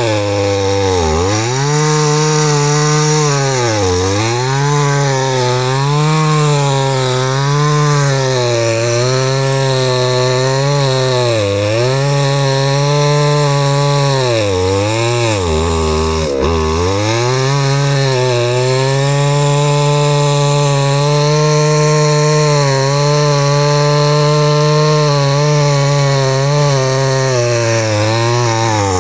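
Chainsaw engine running at high speed, its pitch repeatedly pulled down as the chain bites into the wood and rising back between cuts. After about the middle it holds a steady high pitch.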